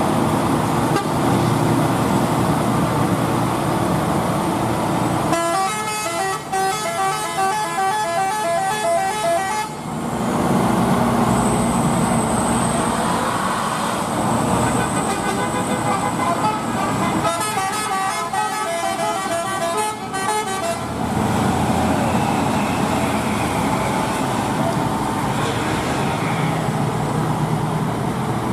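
Vehicle engines running steadily, with two bursts of a multi-tone horn playing a short stepped tune, the first about five seconds in and the second about seventeen seconds in, each lasting around four seconds.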